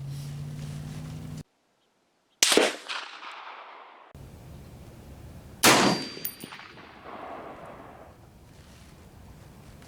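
Two rifle shots about three seconds apart, each followed by an echo that dies away. A low steady hum is heard for the first second or so.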